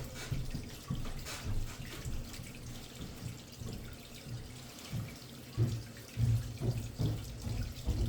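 Water running through the drain line, with an uneven low rumble and scattered knocks that grow louder near the end.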